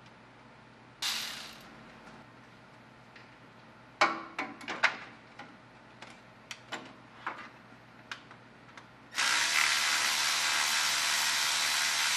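Sharp irregular ratchet and wrench clicks as the transmission pan bolts are loosened. From about nine seconds in comes a sudden, loud, steady hiss.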